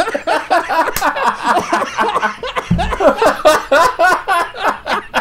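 Two men laughing together, loud and continuous.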